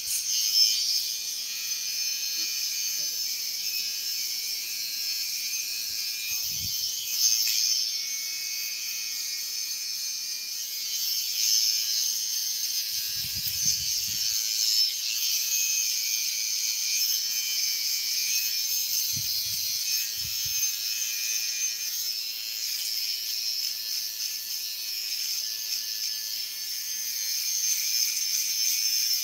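Cordless T-blade hair trimmer buzzing steadily as it trims short hair, with a few brief low thumps from handling.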